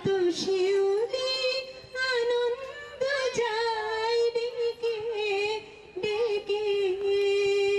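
A woman singing solo into a microphone, holding long wavering notes with short breaths between phrases.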